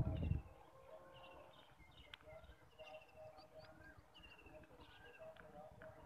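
Faint birdsong: many short, high, falling chirps and a lower repeated note, with a brief low rumble right at the start.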